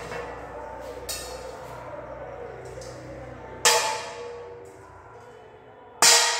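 A metal object struck hard twice, about two and a half seconds apart, each a sharp clang that rings on and fades over about a second, after a lighter knock about a second in. It is the ringing that marks a material as a metal.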